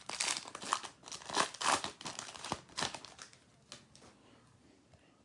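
Wrapper of a trading card pack being torn open and crinkled: a run of crackling rustles that dies away after about three seconds.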